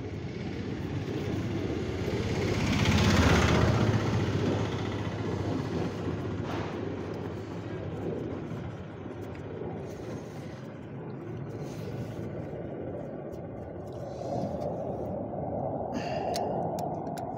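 Steady low outdoor rumble that swells to its loudest about three seconds in, then settles back.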